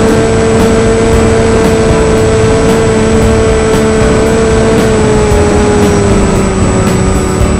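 Electric motors and propellers of an RC model aircraft, heard from its own onboard camera: a loud, steady whine over a rushing noise, its pitch sliding slightly lower about five seconds in.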